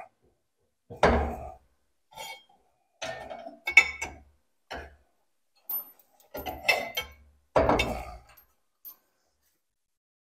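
Irregular metal clanks and clinks, seven or eight in all with gaps between, as steel parts (a clamped plate, a clamp and a hanging chain) are shifted and knocked into place on a tractor frame.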